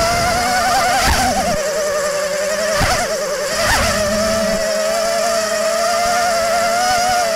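FPV racing mini quad's motors and propellers whining steadily, the pitch wobbling rapidly, with brief surges about a second in and around three seconds in. The wobble is the oscillation of roll and pitch P gain set too high.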